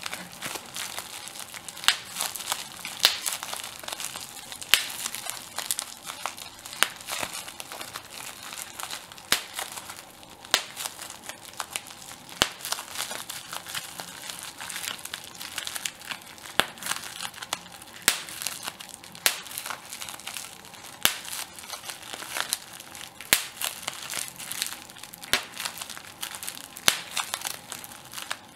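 Plastic bubble wrap being crumpled and popped by hand: a steady crinkling of the plastic broken by sharp, irregular pops of bursting bubbles, several at a time.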